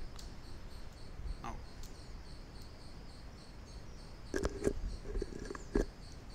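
Quiet background with a steady, high-pitched pulsing trill throughout. A few brief low sounds come between about four and six seconds in.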